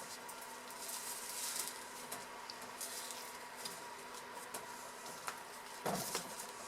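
Quiet steady hum and hiss, with faint clicks and soft rustles from a soap loaf being worked out of its mold; a louder handling rustle comes about six seconds in.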